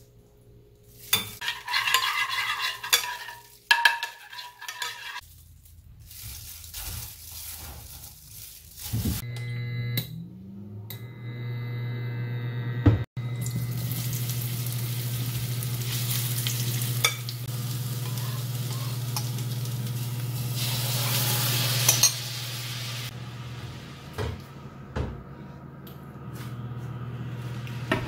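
Metal spoon clinking and scraping in a pot while a sauce is stirred. About a third of the way in, a steady low hum starts, and mushrooms are then stir-fried in oil in a nonstick frying pan, sizzling loudly for several seconds as the spoon moves them around.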